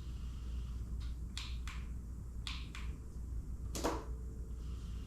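Motorcycle handlebar turn-signal switch clicking on and off, short sharp clicks mostly in pairs about a third of a second apart, with one louder knock just before four seconds in, over a steady low hum. The new LED turn signal does not light.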